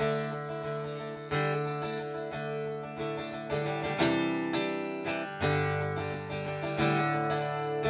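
Live band playing a country song's instrumental intro: acoustic guitar strumming chords with electric guitar and bass guitar, a new chord struck about every second and a half.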